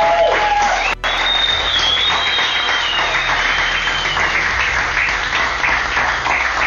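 A small group of people clapping in a room, with a short break in the sound about a second in and a high held note over the clapping for a couple of seconds after it.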